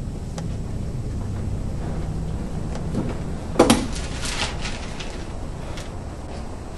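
A sharp knock a little past halfway through, followed by a few lighter clicks, over a steady low rumble.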